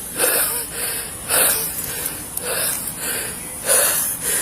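A person breathing hard in heavy, gasping breaths, about one a second.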